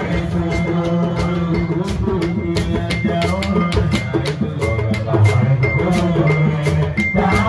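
Live band music driven by dense, fast drums and percussion, with a short high ringing tone repeating on the beat over low sustained notes.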